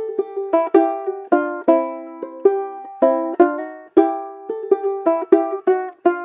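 A small banjo being strummed in a steady rhythm, about two to three bright, ringing chords a second, with the fretted chord changing every few strums.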